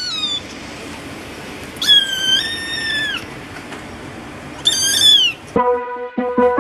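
Kittens meowing: a short falling meow at the start, then two high-pitched meows, a longer one about two seconds in and a shorter one near five seconds. Music starts near the end.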